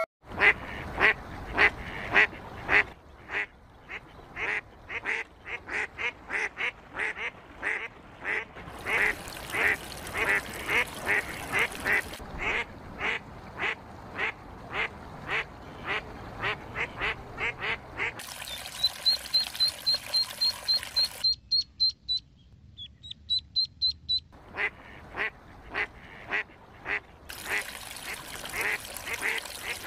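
Ducks calling: short calls repeated about two or three a second. About two-thirds of the way through comes a run of thin, high peeps, about six a second.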